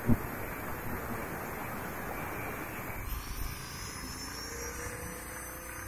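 Handheld angle grinder cutting a rusted steel tube, a steady grinding noise with a sharp knock right at the start. About halfway through the noise thins and a faint motor whine slowly rises in pitch.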